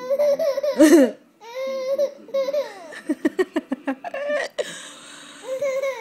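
Baby laughing in a series of high-pitched bursts. The loudest comes about a second in, and a quick run of short laughs follows around the middle.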